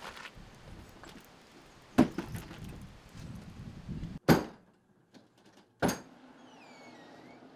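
Door being handled and opened: a sharp thump about two seconds in, another just past four seconds and a third about six seconds in, followed near the end by faint thin squeaks.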